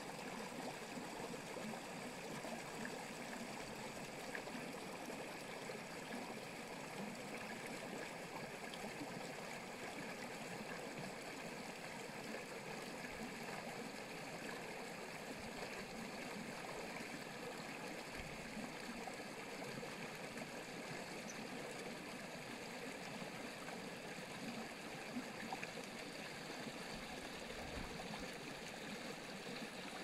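Shallow, clear stream flowing over stones and pebbles: a steady rippling water sound.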